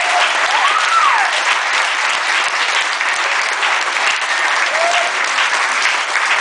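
Audience applauding steadily after a live harp performance, with a rising-and-falling whistle about a second in and a shorter one near the end.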